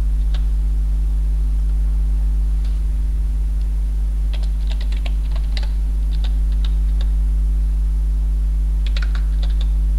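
Typing on a computer keyboard in short bursts of key clicks, a few about four to five seconds in and again near the end, over a steady low electrical hum.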